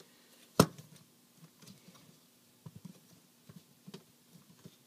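Hard plastic clicking as the joints of a TFC Toys Eagle transforming-robot figure are worked by hand: one sharp click about half a second in, then a run of small, irregular taps and clicks.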